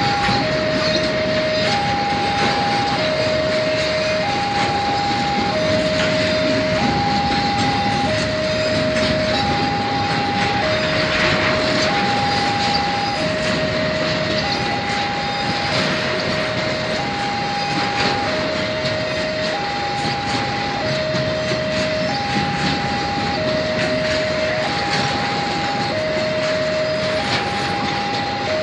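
Railway level-crossing warning alarm sounding two notes, a higher and a lower one each held for about a second and alternating steadily, over the rumble and clatter of a container freight train's flatcars rolling past.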